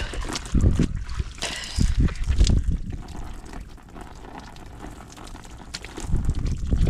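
Water trickling and splashing from a hanging shower bag's faucet during an outdoor wash, with wind buffeting the microphone in uneven low rumbles.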